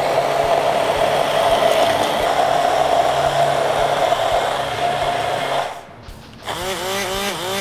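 Handheld immersion blender running steadily in a tall cup of milk and grated coconut: a steady motor whine with a churning hiss. It cuts off a little under six seconds in.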